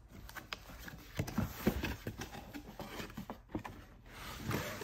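Cardboard shipping box being opened and handled: a run of scrapes, rustles and knocks of cardboard, loudest a little over a second in.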